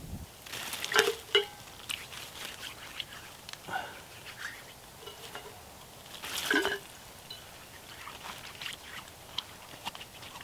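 Handling noises in dry leaf litter: scattered rustling and crunching with a few sharp clicks and knocks, the loudest about a second in and again about six and a half seconds in.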